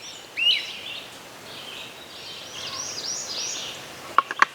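Songbirds calling: a short rising chirp near the start, then a quick run of about five high, arching notes around three seconds in. A few sharp clicks near the end.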